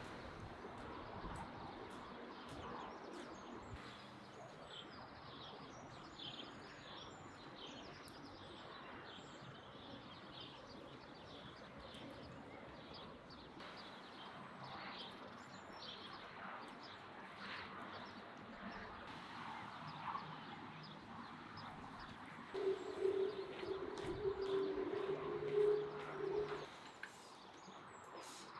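Outdoor ambience with birds chirping and cooing. Near the end, a louder steady tone lasts about four seconds.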